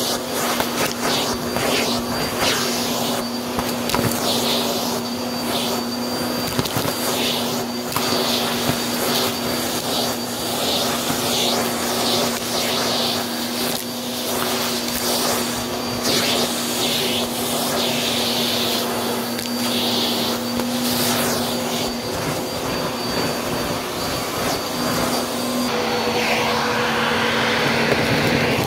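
Vacuum cleaner running steadily with a motor hum and a high whine, its crevice tool sucking up small plastic bits, beads and debris off carpet, with many short clicks and rattles as pieces are pulled in. Near the end the hum changes pitch as a brush tool digs into a pile of wood shavings.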